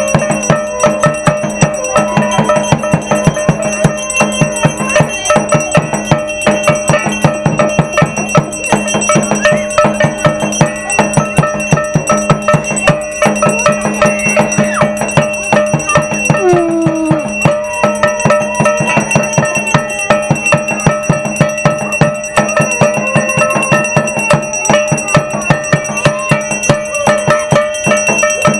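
Aarti ritual music: bells and metal percussion clanging in a fast, steady beat of about three strokes a second, with bell tones ringing on underneath.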